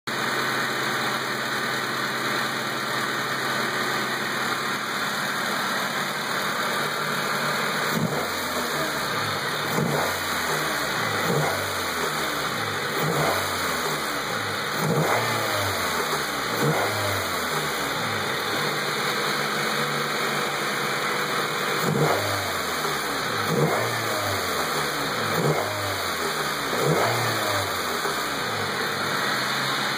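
Honda D16Z6 1.6-litre SOHC VTEC four-cylinder engine idling steadily, then revved in short throttle blips about every one and a half to two seconds from about eight seconds in. The engine has a knock.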